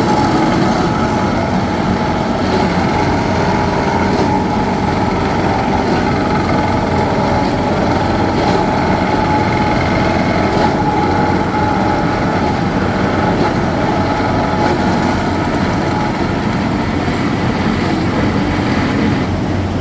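Heavy construction machinery, likely an equipment-mounted rock core drilling rig, running steadily. It makes an even engine drone with a constant whine above it.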